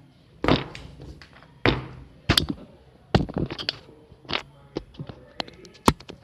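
Handling noise from a football boot being turned over in the hands and set down: a series of irregular sharp knocks and taps with brief rustles, the loudest about half a second in, near the two-second mark and shortly before the end.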